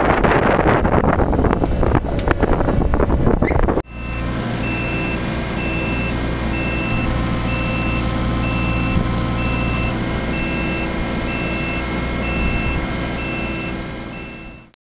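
Wind buffeting the microphone, then, after a cut about four seconds in, the diesel engine of a Croc Lift BL45 self-propelled hydraulic boat trailer running steadily while its travel alarm beeps about twice a second. It fades out near the end.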